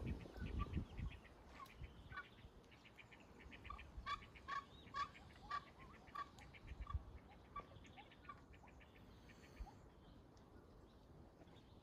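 Ducks calling in a run of short, repeated calls, several a second, loudest around four to six seconds in, with faster high chittering alongside. There is a low rumble in the first second.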